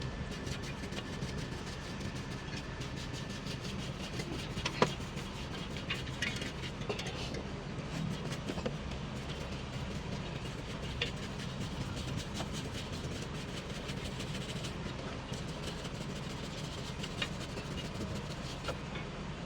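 A heavy engine running steadily with a low hum, with a few sharp clicks or knocks, the loudest about five seconds in.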